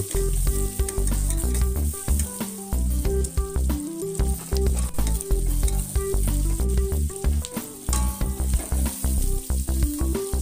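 Food sizzling in hot oil in an aluminium wok while a metal spatula stirs and scrapes, with frequent sharp clicks of the spatula against the pan. Background music with a low bass line plays underneath.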